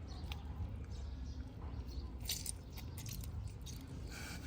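Close-up eating sounds: someone biting and chewing food, with short wet clicks and a denser run of sharper clicks about two seconds in.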